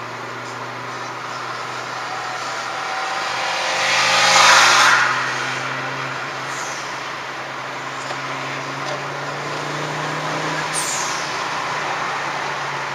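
Steady car engine hum and tyre noise heard from inside a car at road speed. About four to five seconds in, a swell of engine and road noise builds and fades as a tuned Trabant with a swapped-in engine overtakes close alongside.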